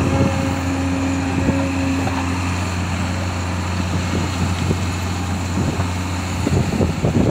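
Diesel engine of a JCB tracked excavator running steadily under digging load, with a held whine that stops about two and a half seconds in. Near the end, crunching and rattling of loose stone as the bucket works the gravel.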